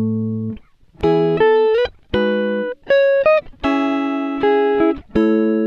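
Background music played on guitar: a string of plucked notes and chords, each ringing out and fading, some sliding up in pitch.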